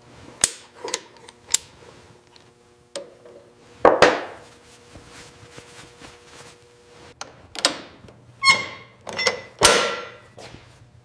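Irregular knocks and clanks of tools and parts against metal, about nine in all, some ringing briefly. The loudest comes about four seconds in, with another cluster near the end.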